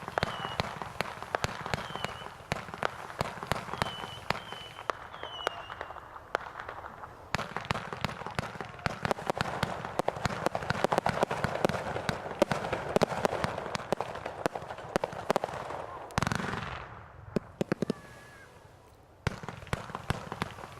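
Consumer fireworks going off: a dense run of sharp crackling pops, many overlapping, with one bigger boom about 16 seconds in that fades away, a short lull, then crackling again near the end.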